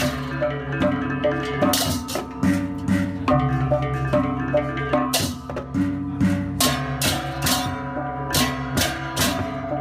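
Percussion music: drums with ringing tuned metal percussion and frequent bright, cymbal-like clashes in a steady rhythm.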